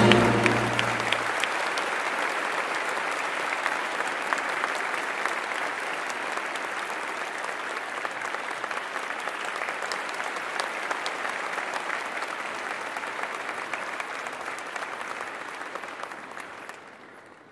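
Audience applauding in a large hall as the last held chord of the choir and orchestra dies away in the first second or so. The clapping runs on steadily, grows gradually softer and fades out near the end.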